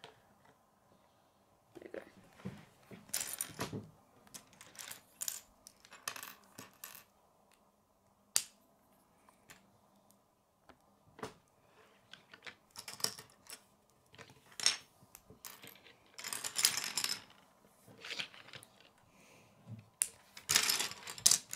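Small plastic LEGO pieces clicking and clinking as a battle droid minifigure is put together and pressed onto a plate on a wooden tabletop: scattered light clicks and short rattles, with one sharp click about eight seconds in and busier handling near the end.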